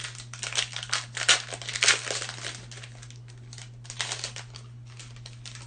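Trading-card pack wrapper being torn open and crinkled: dense crackling for the first two and a half seconds or so, then a few scattered crinkles.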